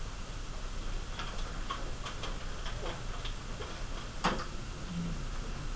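Pencil writing on paper: light, irregular ticks and taps of the lead, with one sharper tap about four seconds in.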